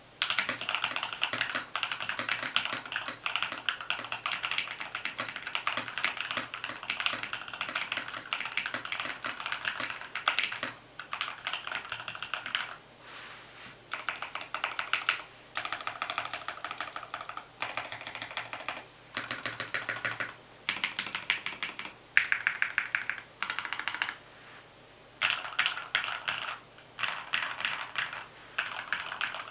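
Typing on an Alfawise TKL mechanical keyboard modded with lubed Gateron Pro v2 yellow linear switches, PBT keycaps, a tape mod and case foam. It begins with about ten seconds of fast continuous typing, then goes on in short bursts with brief pauses between them.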